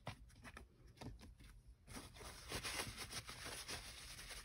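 Faint handling sounds of a plastic bottle of mineral oil as it is capped and moved: a few light clicks, then a soft steady scratchy noise in the second half.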